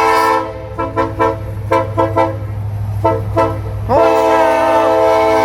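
Locomotive air horn sounding a chord of several tones: a long blast cuts off early, then quick short toots in groups of two and three, then another long blast begins about four seconds in, its pitch swooping up as it comes on. A steady low rumble runs underneath.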